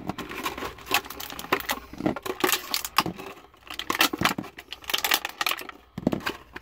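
Clear plastic blister packaging crinkling and crackling in the hands as small toy figures are worked out of it, a run of irregular sharp crackles.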